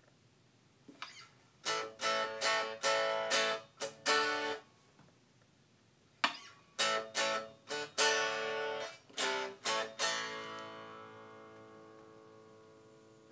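Epiphone Korina Explorer electric guitar strummed in short, clipped chords. After a pause of about a second and a half, another run of chords ends on one chord left ringing and slowly fading.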